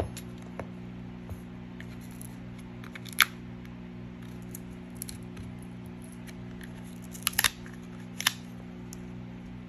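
Sharp clicks and snaps of a pry tool working around the edge of a Samsung Galaxy A70's heat-softened back cover as it is lifted away from the frame. The loudest snap comes about three seconds in and a quick cluster of three comes near the end, all over a steady low hum.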